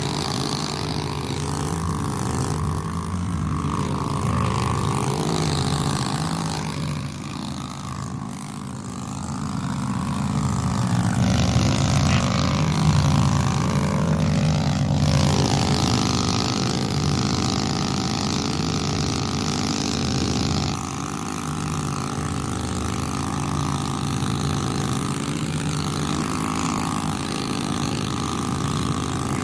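Plate compactor running steadily as it compacts loose gravel, its engine a constant hum. It grows louder with an added high hiss for about ten seconds in the middle, then settles back.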